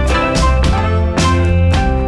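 Background instrumental music with plucked guitar over a steady beat and a strong bass.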